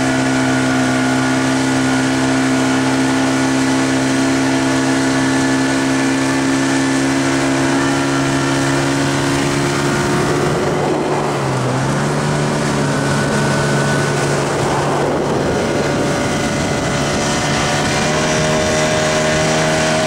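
A motorboat's engine runs steadily under way, with water rushing past the hull. About halfway through, its note dips briefly and changes before settling steady again.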